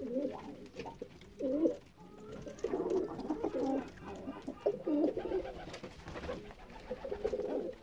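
Domestic pigeon cooing: about five phrases of low coos with short gaps between. The source is most likely the male karabaş (black-headed) pigeon, courting the female just put in with him.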